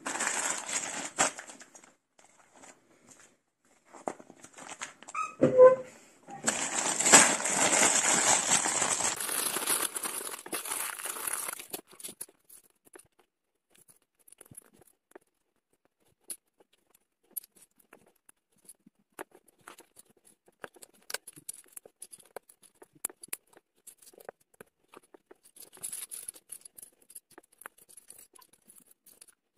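A plastic LEGO parts bag is crinkled and torn open, with a loud rustle lasting several seconds. After that come scattered small clicks of plastic LEGO bricks being handled and pressed together.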